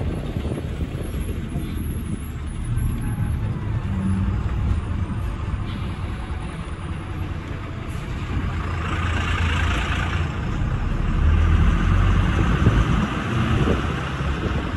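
Bus engine running with a steady low rumble, heard from inside the bus. From about eight seconds in a rushing hiss rises over it and the whole sound grows louder.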